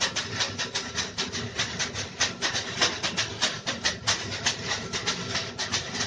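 Pair of leafy bath whisks (veniki) swished and patted over a person's back: a quick rustling beat of about five strokes a second.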